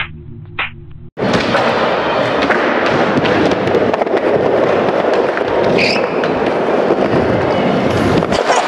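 Music with a steady beat cuts off about a second in, giving way to loud skateboard noise: wheels rolling on a smooth skatepark floor, with sharp clacks and scrapes of the board against a ledge.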